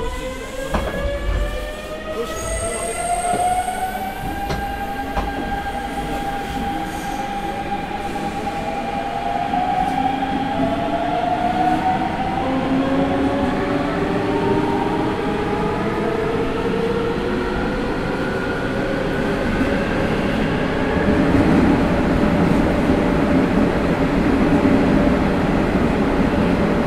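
Hanshin 9000 series electric train accelerating, heard from inside the car: the inverter and traction motors whine in several tones that climb in pitch for about twenty seconds, over rising wheel-and-rail rumble. The running noise grows louder about three-quarters of the way through.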